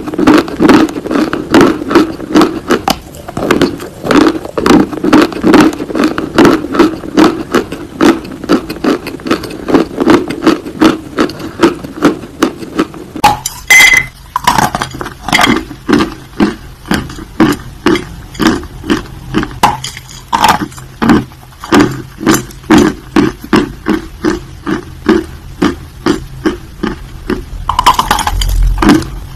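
Mouth-close crunching of dry Turkestan white clay: steady crisp chewing at about two crunches a second as the chunks are bitten and ground between the teeth, with a louder snapping bite about halfway through.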